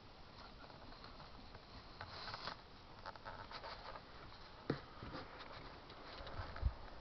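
Faint rustling and scratching, with a sharp click about two-thirds of the way through and a dull thump near the end.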